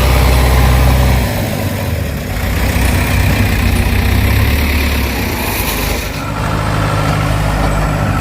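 Heavy diesel machinery engine running loudly, its low note dropping about a second in and shifting to a different, slightly higher steady pitch near the end.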